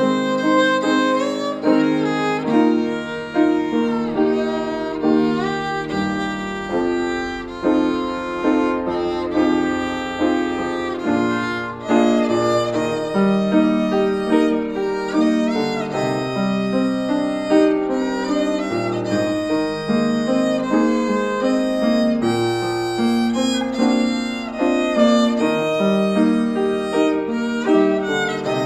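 A child playing a bowed melody on the violin, accompanied by piano chords.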